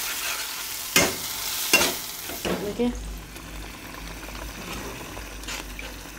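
Ground spices and onion masala sizzling in hot oil in a pan as a steel spatula stirs and scrapes, with a couple of sharp clacks of the spatula against the pan. After about three seconds the sizzle drops to a quieter stirring of a wetter curry.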